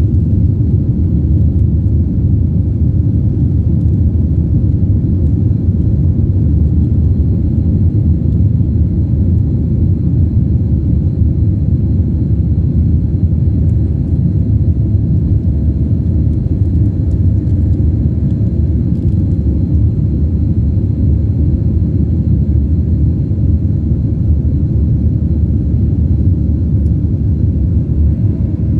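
Steady low rumble of a Boeing 737's jet engines and rushing air heard from inside the passenger cabin during the climb after takeoff, with a faint steady high whine above it.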